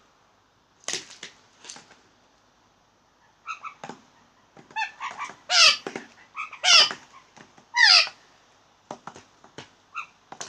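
Blue jays calling: a run of short squeaky notes and wavering, pitch-sliding calls, the loudest three coming about a second apart in the second half.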